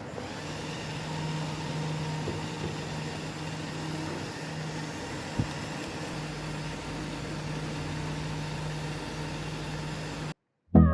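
Small DC-motor mini fan running: a steady low hum with an even hiss of moving air, one short click about five seconds in, cutting off suddenly just before the end.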